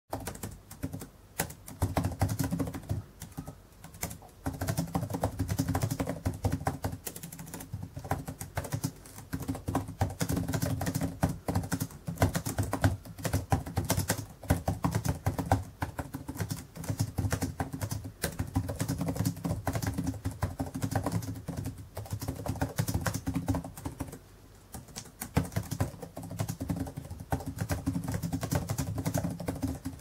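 Fast typing on a Dell laptop's chiclet keyboard: rapid key clicks in long runs, broken by a few brief pauses.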